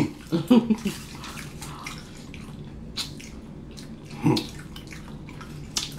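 Wet chewing and slurping of lo mein noodles close to the microphone, with a few light fork clicks and a brief hum of a voice just after the start.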